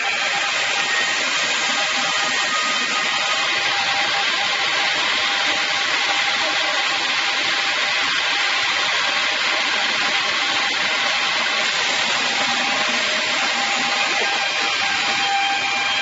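Double-blade angle sawmill cutting through a log: a steady, dense sawing noise of blade in wood, with the saw motor running underneath.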